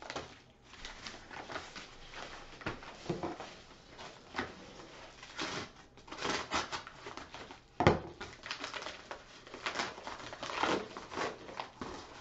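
Cardboard and plastic packaging being handled and torn open: irregular crinkling, rustling and tearing, with scattered clicks and a sharp knock just under eight seconds in.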